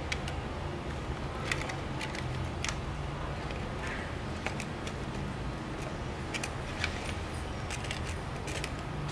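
Scattered sharp clicks and taps, a dozen or so at uneven intervals, over a steady low rumble.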